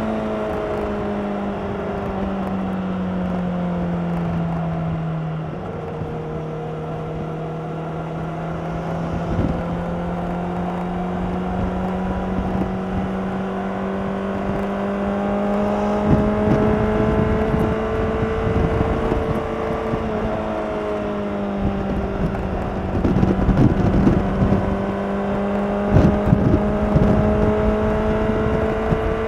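2016 Honda CBR600RR's inline-four engine through its stock exhaust, cruising at fairly steady revs. The revs sag a little over the first few seconds, then climb slowly. Wind buffets the microphone throughout.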